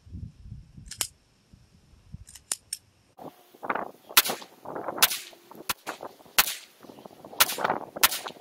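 Glock 27 .40-calibre pistol firing a steady string of about six single shots, spaced a little under a second apart, starting about four seconds in.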